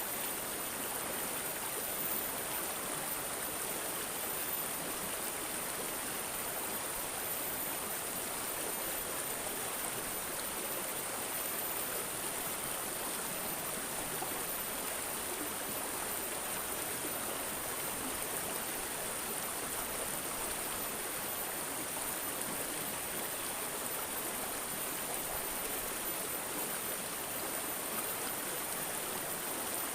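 Water trickling and gurgling steadily, like a small stream, with no pauses or changes.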